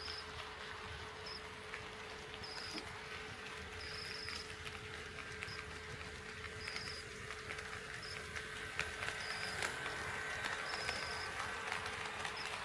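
HO-scale model train running on the layout track: a thin motor whine with light, irregular clicks of wheels over rail joints, growing louder about two-thirds of the way through.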